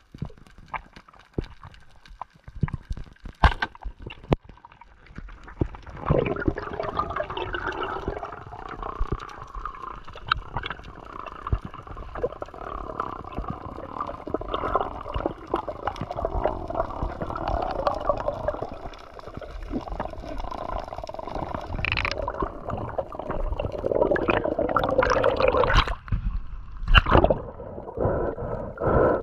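Water sloshing and gurgling, uneven and swelling, after several seconds of scattered sharp clicks.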